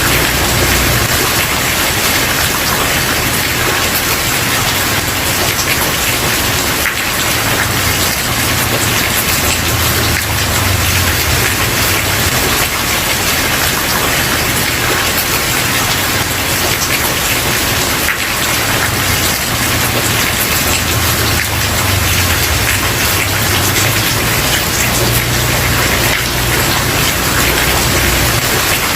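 Steady rain falling on a wooden porch: a dense, even hiss of drops with scattered single drop ticks. A low rumble underneath swells and fades every few seconds.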